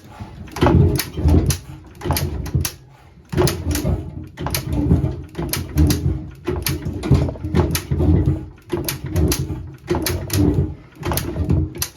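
A JAP 5 single-cylinder engine on a 1947 Clifford rotovator being turned over by hand again and again, a run of short, uneven bursts about once or twice a second. It does not catch: the engine wants to start but isn't firing yet.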